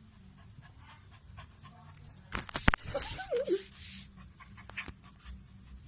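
A husky panting and breathing hard in a loud, breathy burst lasting about two seconds in the middle, with a short wavering whine inside it.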